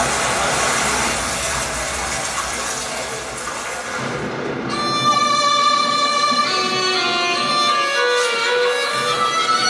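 Dance backing music: a dense, noisy wash gives way about five seconds in to a violin melody of held notes.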